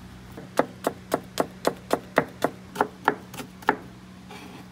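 Japanese kitchen knife chopping through rolled sheets of daikon radish onto a plastic cutting board, cutting it into fine strips: about a dozen quick, even knocks, roughly four a second, that stop near the end.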